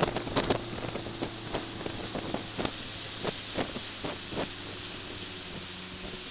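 A small ferry boat's engine running steadily underway, with irregular sharp knocks over it that thin out after about four seconds.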